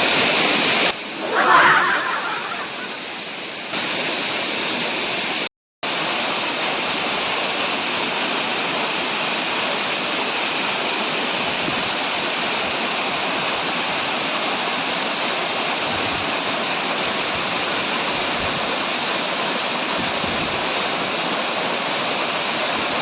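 Steady rushing of water falling at a waterfall, with a brief total dropout about five and a half seconds in.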